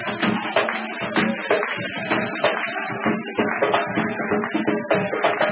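Percussion music with rattles shaken in a steady, fast rhythm over drum beats.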